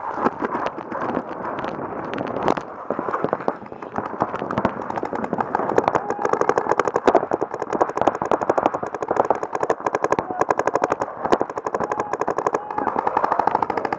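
Paintball markers firing rapid strings of shots, many pops a second, growing denser and louder about halfway through.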